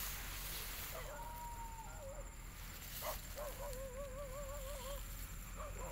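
A faint, wavering, whine-like animal call, heard twice: briefly about a second in, then longer from about three and a half seconds.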